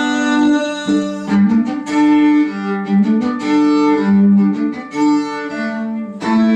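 Live band music: an instrumental break between sung lines, led by sustained bowed violin notes over the band.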